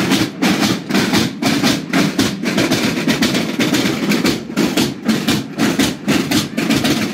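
Marching snare drums of a drum-and-bugle corps beating a steady march rhythm, loud strikes repeating a few times a second.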